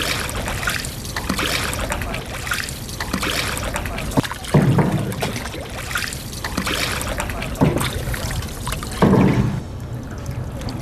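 Water splashing and dribbling as bamboo-tube fish traps are hauled up out of a river, with heavier splashes or knocks about four and a half, seven and a half and nine seconds in.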